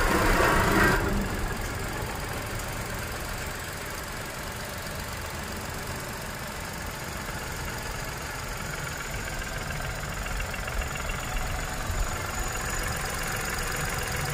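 Tata Punch's 1.2-litre Revotron three-cylinder petrol engine just after starting: louder for about the first second, then settling into a steady idle.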